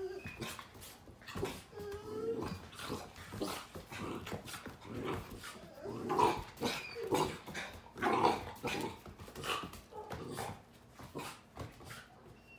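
Pit bull puppy making short play vocalizations, loudest about six and eight seconds in, while its paws and claws click and scrabble on a hardwood floor.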